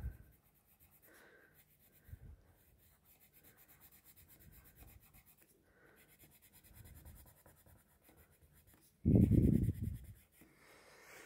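Coloured pencil scratching softly on paper in short shading strokes. Near the end comes a louder, low rub or bump lasting about a second.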